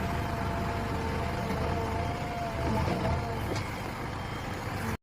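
JCB 3DX backhoe loader's diesel engine running steadily under a low rumble, with a faint whine over it that fades out about three seconds in.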